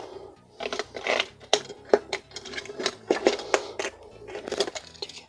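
Clicks, taps and clatter of a plastic toy duck's shell and battery compartment being handled, a quick series of sharp knocks.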